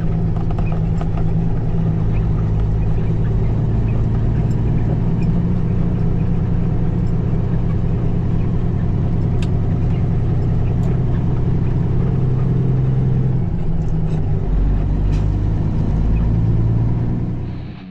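Peterbilt 379 semi truck's diesel engine running under load as the rig pulls out and drives off, heard from a camera on the hood along with road noise. Its note shifts near the end.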